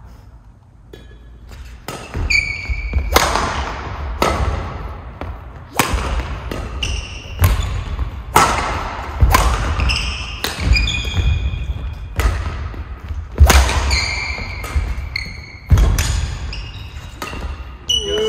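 Badminton rally: rackets strike the shuttlecock about once a second, with short squeaks of shoes and thuds of footsteps on the wooden court floor, ringing in a large hall. It starts about two seconds in.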